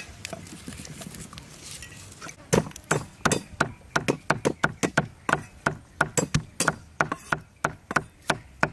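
Knife chopping ingredients on a cutting board: a steady run of sharp chops, about three to four a second, starting about two seconds in.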